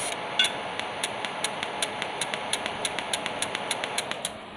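TIG welder's high-frequency arc starter sparking at the torch tip: an even run of sharp crackling clicks, about five or six a second, over a steady hiss.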